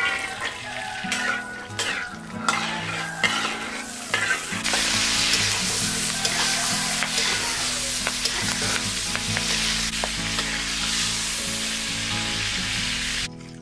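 Green peas poured into hot oil in a steel wok and stirred with a metal slotted spoon, spoon scraping and clinking against the pan as the oil sizzles. About four and a half seconds in, the frying turns to a loud, dense, steady hiss that stops abruptly just before the end.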